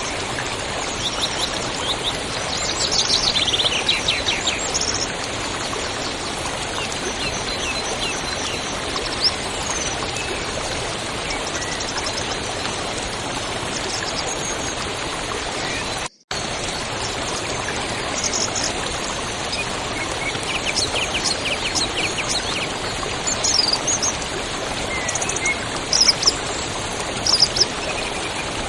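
A river rushing steadily with songbirds chirping and trilling over it. The sound cuts out completely for a split second about halfway through.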